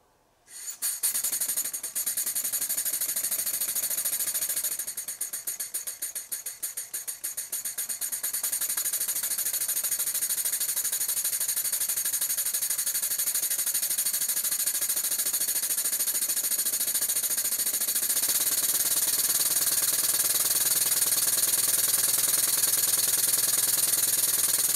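Stuart 10V single-cylinder model steam engine running on compressed air for its first test run: a fast, even beat of exhaust puffs over a steady hiss. It starts about half a second in, slows for a few seconds about five seconds in so the beats come apart, then picks up speed again and runs steady. Its valve timing is late, admitting air well past top dead centre.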